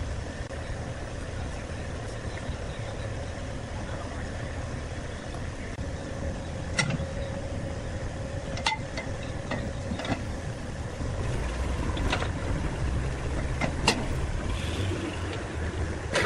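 Wood lathe motor running with a steady hum. Sharp knocks come every second or two from about seven seconds in.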